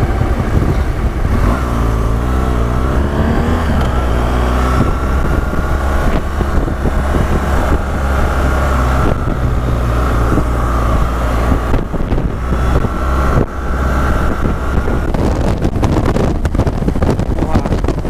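BMW R1200GS Adventure's boxer-twin engine running steadily at cruising speed, with wind rushing over the helmet camera's microphone. Near the end the sound turns choppy with rapid crackles.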